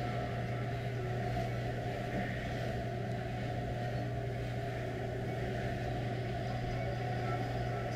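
A steady low hum with no distinct knocks or clanks.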